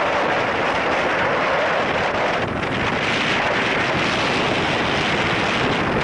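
Wind buffeting the camera microphone: a steady, loud rush of noise.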